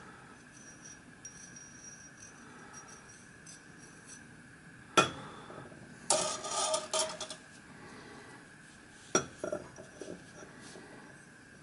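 Copper boiler shell and flux brush being handled and set down on a steel bench plate: a sharp metallic knock about five seconds in, a short clatter straight after, and another knock with a few lighter taps about nine seconds in.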